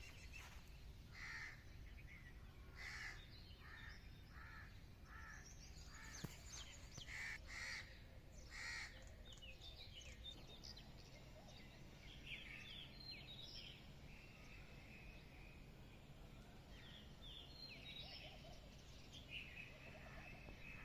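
Faint birds calling: a run of about ten harsh, evenly spaced calls in the first half, then quicker high chirping.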